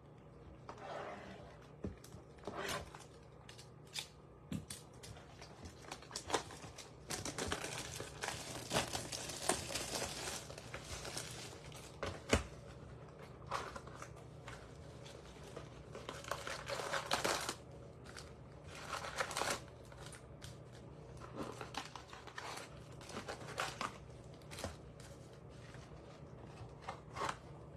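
Plastic shrink wrap being torn and crumpled off a trading-card hobby box, with the cardboard box and card packs handled: irregular crinkling and rustling broken by sharp clicks, in several longer stretches that are loudest around the middle.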